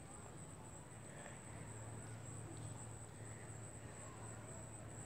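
Faint outdoor background noise with a steady high-pitched whine and a low hum.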